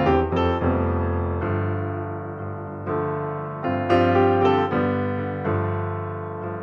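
Background piano music: chords and notes struck every second or so and left to ring.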